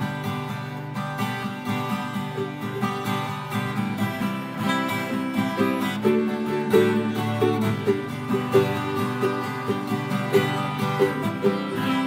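Twelve-string acoustic guitar played through a microphone, a steady strummed and picked rhythm with no singing, a little louder in the second half.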